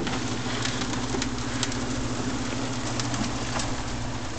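Motorized worm-casting screener running with a steady hum, with scattered light ticks as castings fall through the screen into plastic buckets.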